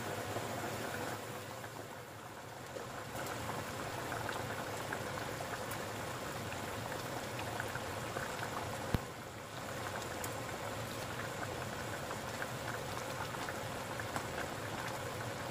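Beef and spiced braising liquid boiling in an open stainless steel pot, a steady bubbling crackle, with one sharp click about nine seconds in.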